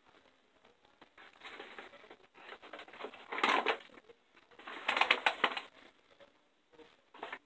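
Paper food packaging crinkling and rustling as it is handled, in several crackly bursts that are loudest about three and a half and five seconds in.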